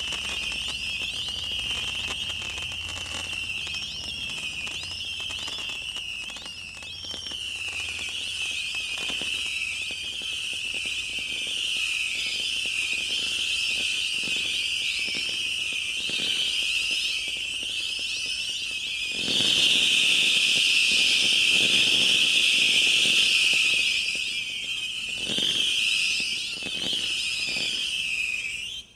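Stealth Fireworks 'Missile Madness' 1000-shot barrage firing whistling penlid missiles in rapid, overlapping succession: a continuous high screeching of many whistles at once, laced with crackles and bangs. About two thirds of the way through the whistles thicken into a louder, denser multiple-launch finale, and the sound cuts off suddenly at the very end as the barrage finishes.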